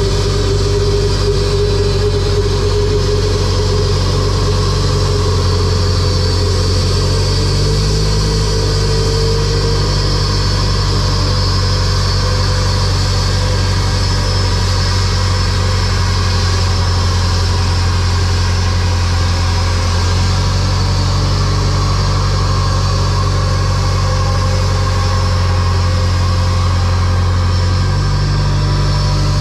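Pushback tug's engine running steadily during an aircraft pushback, its low hum stepping up and down a few times, with a steady high whine above it.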